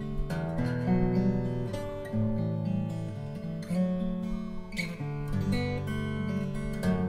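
Steel-string acoustic guitar played fingerstyle: a slow air picked out as a melody, with bass notes ringing under it.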